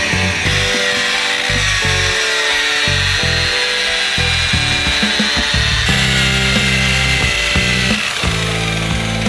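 Electric rotary polisher with a buffing pad, its motor whining steadily and drifting slightly in pitch as it buffs rubbing compound into a plastic headlight lens. Background music with a bass line plays under it.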